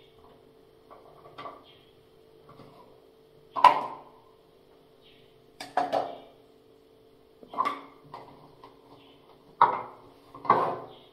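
Plastic toothbrush cups and toothbrushes being picked up and set down on a ceramic washbasin: about six separate clattering knocks, over a faint steady hum.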